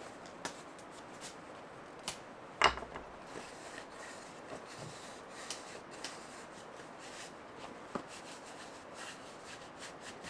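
A cloth rubbing a wooden bowl dry, quiet and continuous, with scattered soft clicks and one sharper knock between 2 and 3 seconds in.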